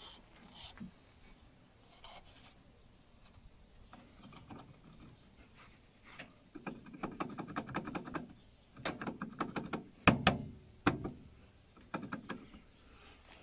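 Metal gear teeth and splines of a Cat 434E backhoe loader's planetary axle hub clicking and clattering as the gear set is turned and wiggled by hand to seat it in the ring gear. The rattling starts about six seconds in, with a few sharper metal knocks around ten seconds in.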